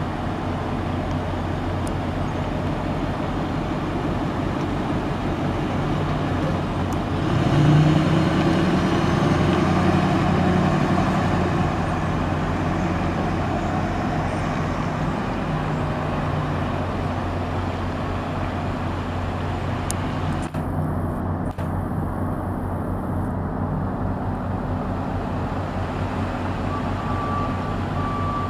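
A 2008 Ford F450's 6.4L V8 turbo diesel running. It is revved up a quarter of the way in, held higher for a few seconds, then settles back to a steady idle. Near the end a backup alarm starts beeping.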